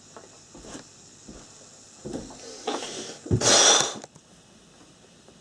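Camera being handled and moved: a few soft knocks, a sharp thump about three seconds in, then a brief burst of rustling close to the microphone.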